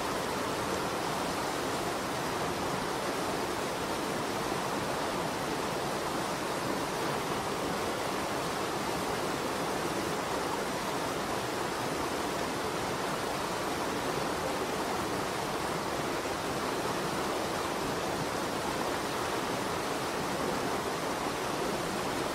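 Steady rushing of a stream: an even, unbroken water noise.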